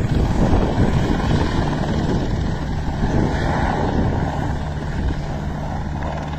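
Helicopter flying overhead and away, its rotor and engine noise fading slowly. A steady low engine hum comes in during the second half.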